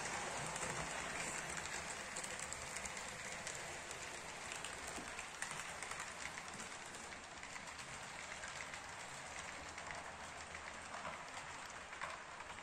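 HO-scale model train rolling along the track: a steady hiss of metal wheels on rails with many fine clicks, slowly getting a little quieter.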